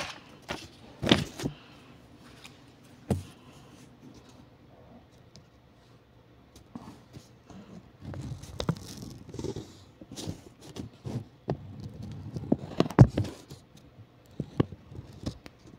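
Handling noises: faint scraping and rustling with scattered taps and a few sharp clicks, the loudest about a second in and again near the end.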